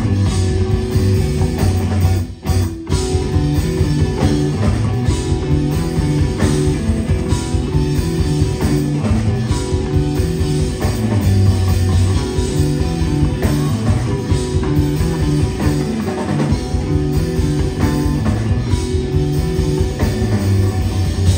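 Live instrumental math rock from a trio of electric bass, electric guitar and drum kit playing together, with busy drumming under a moving bass line. The band stops briefly about two and a half seconds in, then plays on.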